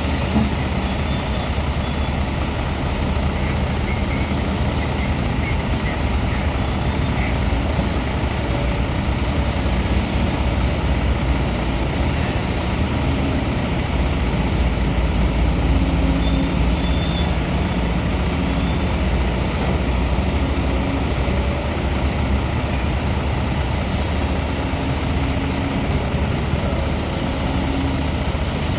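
Diesel engine of heavy construction equipment running steadily under work, with brief pitched tones coming and going over it.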